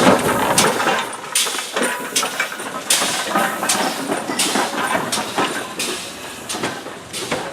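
GWR 57xx-class pannier tank steam locomotive working, its exhaust beats coming as a run of sharp chuffs about two or three a second that grow fainter as it draws away.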